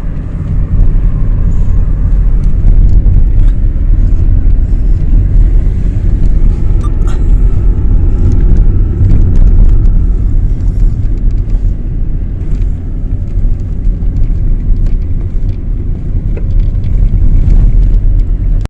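Car driving along a road: a loud, steady low rumble of engine and road noise.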